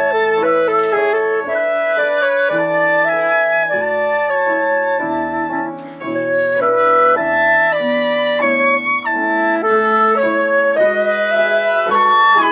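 Chamber trio of flute, oboe and piano playing together: the woodwinds carry the melody over a piano accompaniment, with a brief lull about six seconds in.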